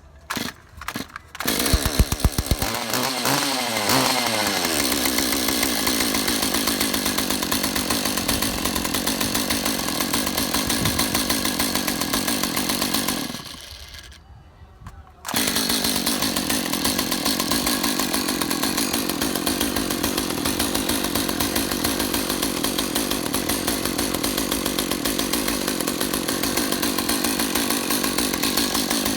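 Stihl MS201TC-M two-stroke top-handle chainsaw started and revved to high speed, running steadily. About 13 seconds in the engine dies away to almost nothing, then comes back about two seconds later: the cut-out caused by a bad wiring harness when the front anti-vibration mount bottoms out.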